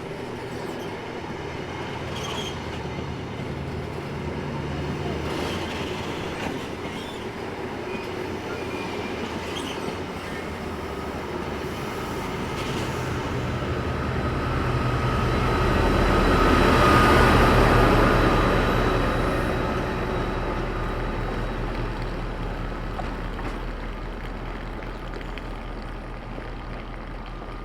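A diesel-hauled passenger train, the Class 68 locomotive with its Mk3 coaches, moving through the station. The sound grows to its loudest with a wheel squeal about two-thirds of the way in, then dies away, leaving the locomotive's diesel engine humming steadily.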